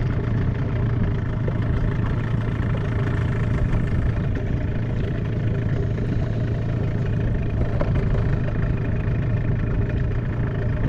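Hidea 15 hp outboard motor on an inflatable boat running steadily at low speed, an even low hum with no change in pace.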